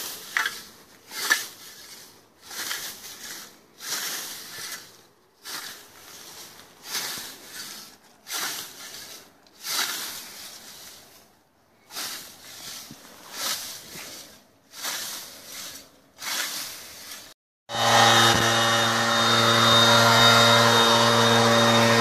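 Hand scythe swishing through tall grass and weeds in steady mowing strokes, about one a second. Near the end, a small engine takes over, running steadily at one pitch.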